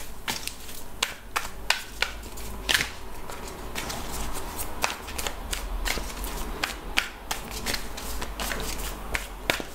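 A deck of tarot cards being shuffled by hand, making a run of irregular soft clicks and slaps as the cards fall together.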